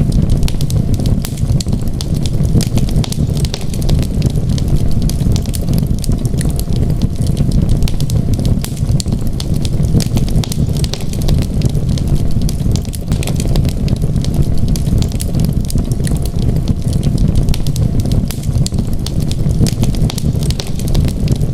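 Wood fire crackling steadily: many small sharp pops and snaps over a constant low rumble of the flames.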